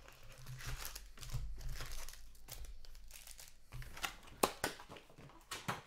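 A cardboard box of foil-wrapped hockey card packs being opened by hand: crinkling and tearing of the packaging as the packs are pulled out, with a few sharp taps, the loudest about four and a half seconds in.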